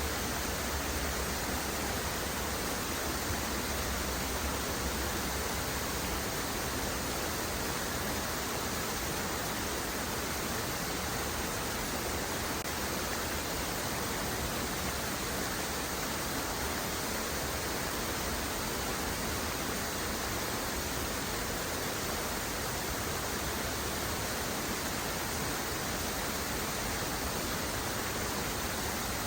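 Steady, unbroken rushing of a waterfall, an even wash of water noise with no separate splashes or drops standing out.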